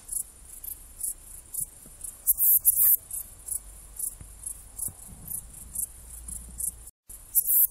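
Saddle-backed bush-cricket (Ephippiger ephippiger) stridulating: a series of short, high-pitched chirps at uneven intervals, some louder than others. The sound cuts out for a moment near the end, then comes back louder.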